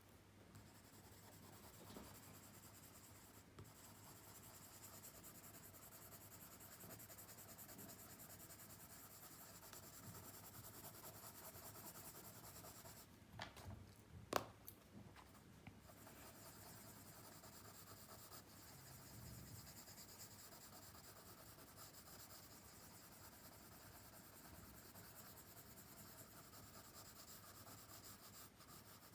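Pencil scratching and rubbing on paper in steady, faint shading strokes. About halfway through the strokes pause briefly, and a single sharp click is heard.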